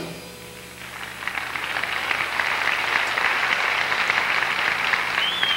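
The band's last chord dies away, then the audience breaks into steady applause from about a second in. A short rising-and-falling whistle sounds near the end.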